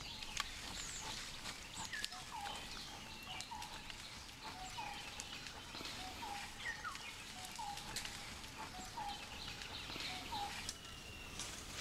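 Jungle birdsong: one bird repeats a short note every half second to a second, while other birds chirp higher up over a faint hiss of forest background.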